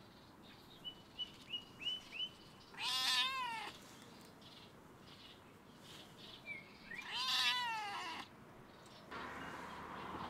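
Calico cat meowing twice, each meow about a second long, with a few faint short high chirps before the first.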